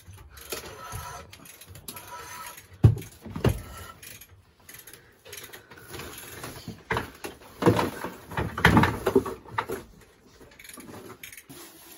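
Irregular metal knocks, clanks and scraping from hand work on a partly dismantled boat engine, with two sharp knocks about three seconds in.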